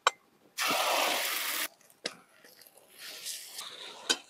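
A hiss of liquid in a cooking pan over a campfire, lasting about a second and cutting off sharply, followed by a couple of light clicks.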